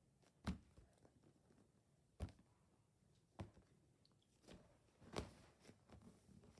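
Squishy foam toys being dropped and set into a clear plastic storage bin: about five separate dull thumps, a second or so apart, with near silence between.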